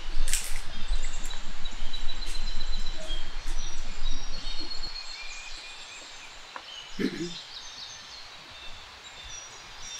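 Woodland ambience with small birds chirping and calling in short high notes. A low rumble of background noise under the first half drops away about halfway through, leaving quieter forest air, with one brief low sound about two-thirds of the way in.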